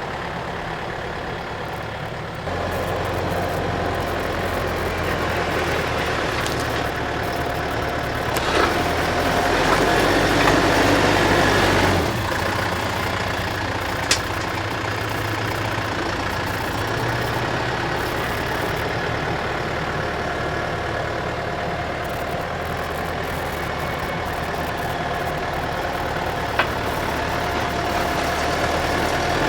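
Skid-steer loader engine running steadily and working hard, stepping up in speed a couple of seconds in, with a louder rush of noise for several seconds in the middle as the stump bucket digs. Two short sharp clicks or knocks sound later on.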